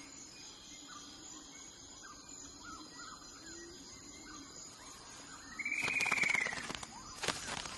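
Forest ambience with steady high insect tones and faint bird chirps. About six seconds in, a loud bird call rises and then falls in pitch, followed by a few sharp clicks.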